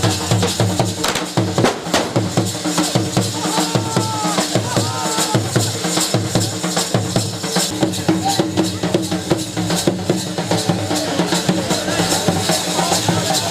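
Dhol drums beaten in a fast, steady rhythm, with dense repeated strikes and strong low booming beats.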